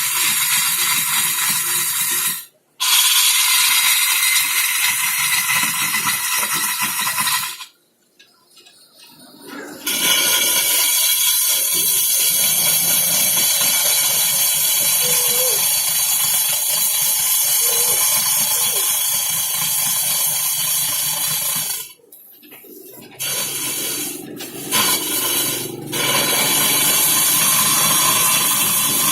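Loud, steady machine hiss that cuts out abruptly several times and resumes.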